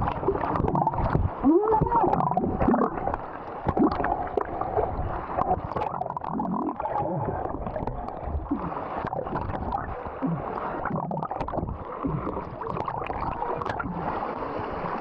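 Muffled sea water sloshing and gurgling around a camera at or just under the surface while swimming, with wavering bubbly tones coming and going throughout.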